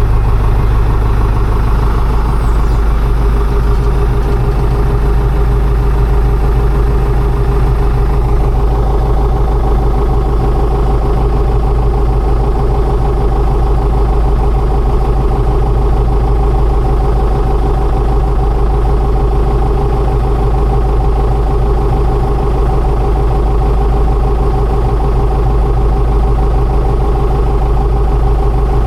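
Combine harvester engine running steadily in the barley field, a loud, even drone that holds without a break.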